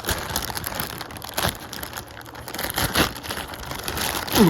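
Plastic package wrapping crinkling and crackling as it is handled and torn open, with a few sharper crackles and a brief downward-sliding squeak near the end.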